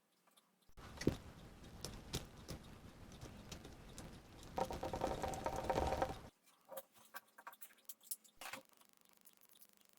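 3D-printed plastic tractor parts being handled and fitted together: a run of dense clicking and rattling with a louder stretch about halfway, then a few separate clicks.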